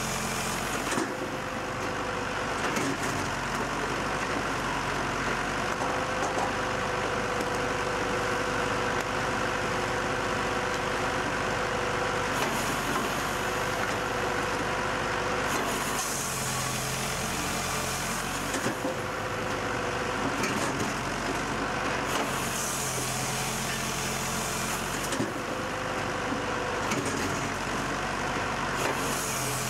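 Tractor-driven firewood processor running steadily as it works through its cutting and splitting cycle. A tone in its hum starts and stops, and a high hiss rises and falls away several times.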